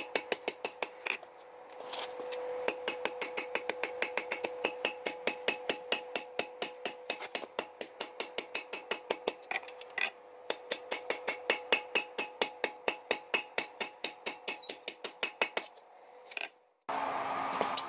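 Hammer blows on hot steel over an anvil, fast and even at about five a second, with the anvil ringing on a steady tone between strikes. Two short pauses break the run, and the blows stop a little before the end.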